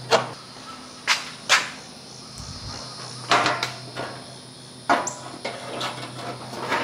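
Irregular knocks and clunks of a steel car fender being handled and pushed into place against the body, about half a dozen sharp hits a second or so apart.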